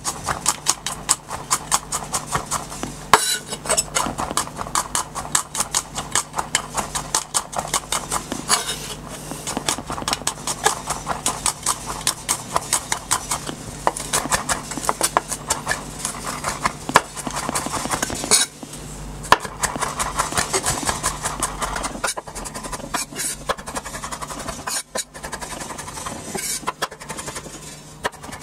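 Chef's knife chopping garlic cloves on a wooden cutting board: quick knocks of the blade on the wood, a few a second, with brief pauses. A steady low hum runs underneath.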